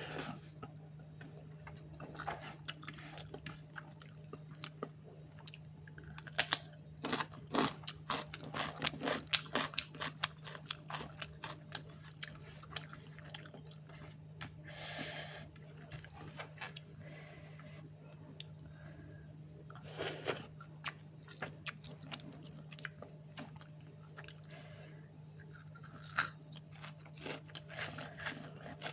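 A person chewing and biting food close to the microphone, wet chewing broken by bursts of sharp crunches, thickest about a quarter of the way in and again near the end. A steady low hum runs underneath.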